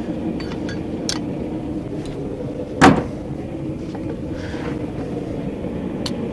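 A steady mechanical hum, with one sharp hammer blow on steel about three seconds in and a few light metal clicks around it.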